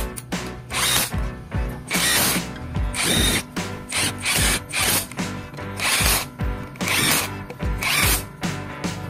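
Power drill running in short repeated bursts, about one a second, on the screws of a Yamaha Jupiter MX engine crankcase. Background music with a steady beat plays underneath.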